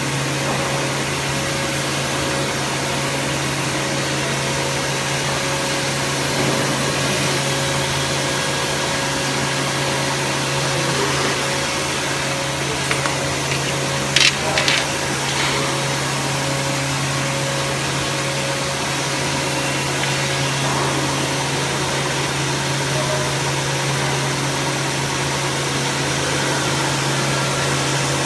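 Wood line sanding machine running steadily, a constant motor hum under an even rushing noise, with a few brief knocks a little under halfway through.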